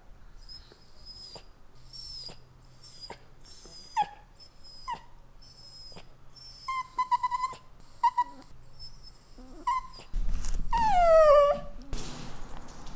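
Italian greyhound whining: a run of thin, high-pitched short whines, then a louder whine that falls in pitch near the end, over a burst of rustling.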